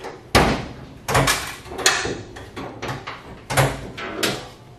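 Hood of a 1969 Ford F-250 pickup being unlatched and lifted: a run of metal clunks and rattles from the latch and hinges. The loudest clunks come about a third of a second in and again about three and a half seconds in.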